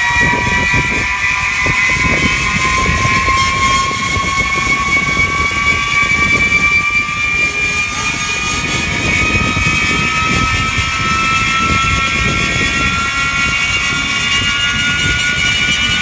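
Large belt-driven electric blower motor spooling up slowly, a whine climbing steadily in pitch over a rough grinding rumble. The sound comes from bearings that are worn out.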